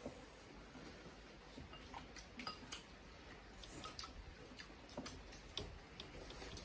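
Light, irregular clicks and taps of chopsticks and bowls during a hot pot meal, about a dozen scattered through the stretch over a faint background.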